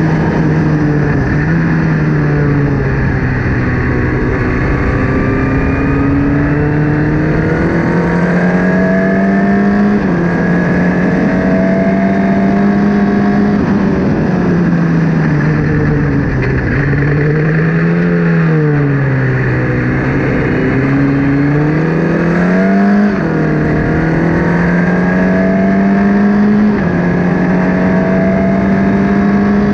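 Formula Ford race car engine at racing speed. Its pitch climbs and drops sharply at each upshift, and sinks and rises again through braking and downshifts about two thirds of the way in.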